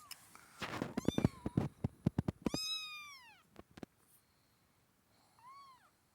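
Kittens meowing: a quick run of scuffing clicks in the first couple of seconds, then one long meow that rises and falls in pitch, and a shorter one near the end.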